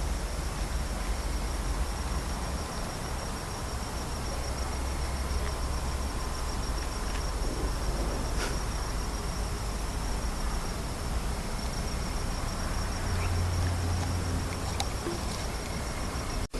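Insects trilling steadily at a high pitch, with a fast, even pulse, over a hiss of background noise and a low rumble.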